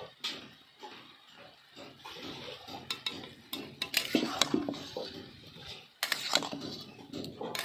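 Metal kitchen utensils clinking and scraping against cookware, in irregular knocks, with busier clatter about four seconds in and again near the end.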